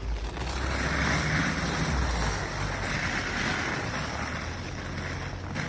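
Water poured in a steady stream from a plastic bottle, splashing onto banana leaves.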